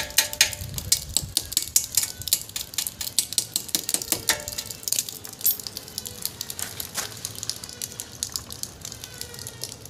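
Rapid, uneven metallic taps, several a second, some ringing briefly: a thin steel rod being knocked with a hand tool to drive the brake-pad retaining pin out of a motorcycle's rear brake caliper.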